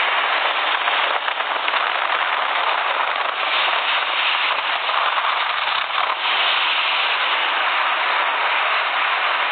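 Wind buffeting the microphone and the rush of churned water from the wake of a fast patrol boat under way: a steady, dense hiss-like noise that barely changes.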